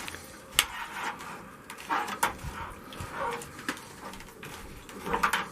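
A metal cleaning tool being screwed by hand into a water heater's drain port: a few sharp metallic clicks and short scraping, handling sounds at irregular moments.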